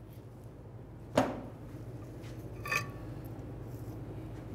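Brake pads being pried out of a car's rear caliper bracket with a pry bar: a sharp metallic knock about a second in, then a lighter ringing clink near three seconds. The pads are rusted and corroded to the bracket hardware.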